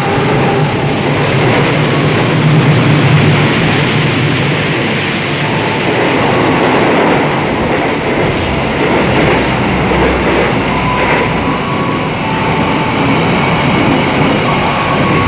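Argo Parahyangan express train passing through the station at speed on the track beside the platform: a loud, steady rush of steel wheels on rail with clickety-clack over the rail joints. Near the end, the coaches of a second train run past on the next track.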